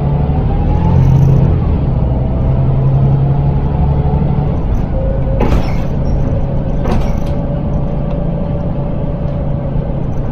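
Volvo B7L bus's six-cylinder diesel heard from inside the saloon, pulling with a rising transmission whine, then easing off. About halfway through come two short air hisses from the brakes, a second and a half apart, and a steady whine carries on as the bus rolls.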